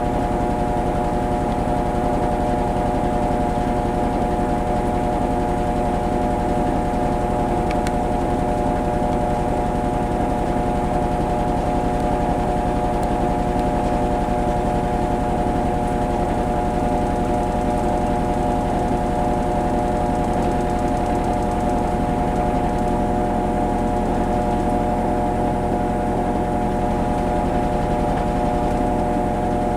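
Kenmore Series 500 high-efficiency washing machine in its spin cycle, spinning at a steady speed with an even whine of several pitches over a low hum.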